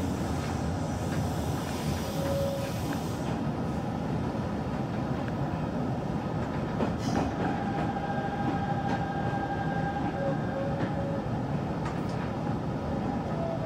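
Hanshin 5500-series electric commuter train running on the track, heard from inside the front of the car: a steady rumble of wheels on rails with a few wheel clicks. A faint steady whine joins in about seven seconds in and fades a few seconds later.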